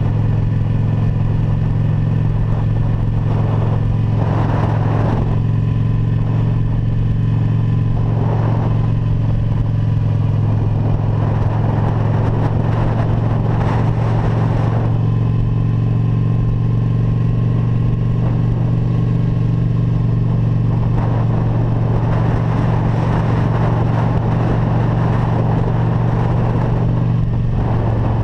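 Motorcycle engine running at a steady cruise, its pitch holding even, under rushing wind and road noise that swells briefly a few times.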